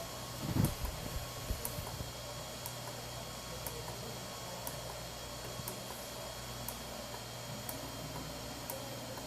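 3D printer running during a test extrusion: a steady low hum with a thin high whine, and a light sharp tick about once a second. A low thump comes about half a second in.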